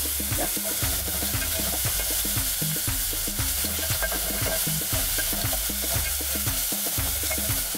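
Chopped onions sizzling in hot oil in an aluminium pot while a wooden spoon stirs them; the onions are frying until they start to change colour. A steady low beat of background music runs underneath.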